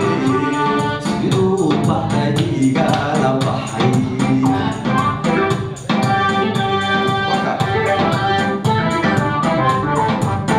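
Live Somali music with a steady beat and light percussion, a male singer singing into a microphone over it at times.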